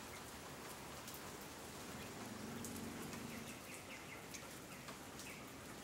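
Light rain falling on garden foliage: a faint, steady hiss with scattered small drip ticks.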